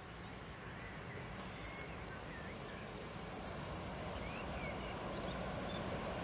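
An approaching freight train hauled by two Siemens Vectron electric locomotives, a low rumble of wheels on rail that grows steadily louder. Birds chirp over it, with a few short, sharp high calls.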